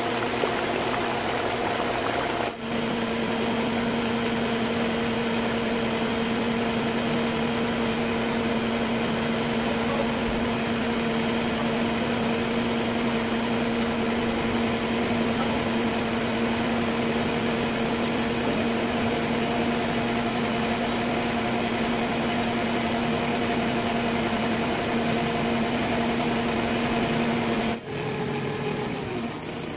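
Electric stand mixer running, its wire whisk beating egg whites to a meringue in a stainless steel bowl: a steady motor hum. The sound breaks off briefly about two and a half seconds in and again near the end, and is a little quieter after the second break.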